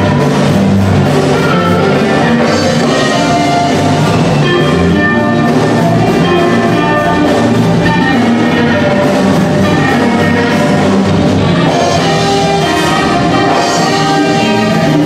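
Loud dance music with brass horns playing over a steady beat.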